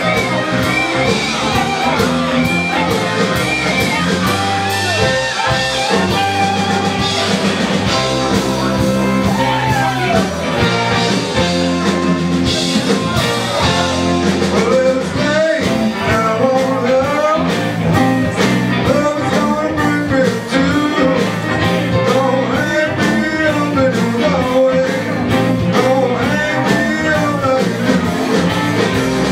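Live blues-rock band playing: a voice singing over electric guitar, bass and drums.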